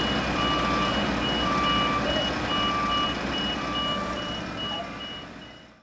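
Two vehicle reversing alarms beeping at once, one higher and quicker at about two to three beeps a second, the other lower and slower at about one long beep a second, over a low engine rumble. The sound fades out near the end.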